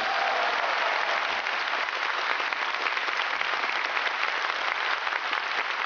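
A large theatre audience applauding, many hands clapping in a steady, dense patter.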